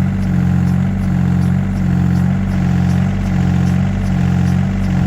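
Vehicle engine running steadily, with a regular pulsing about twice a second, cut in and out abruptly.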